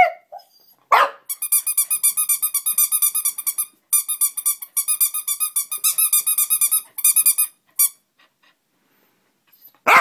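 Small rubber duck squeaker squeezed in long runs of rapid, warbling squeaks at one steady pitch, with a short pause about four seconds in. A Welsh corgi gives short, sharp barks at the start, about a second in, and again at the end.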